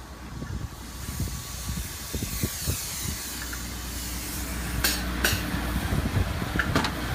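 Polyurethane spray gun hissing over a steady low machine hum, with two sharp clicks about five seconds in; the sound cuts off abruptly at the end.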